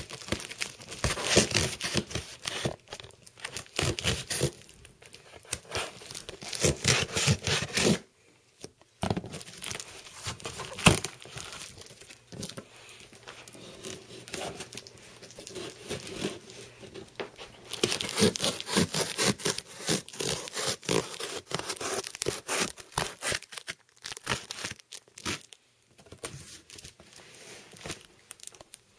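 Shipping-box packaging being torn and crinkled as a hard-to-open, heavily packed box is worked open. It comes in several long bursts of tearing with short pauses between, and one sharp click about eleven seconds in.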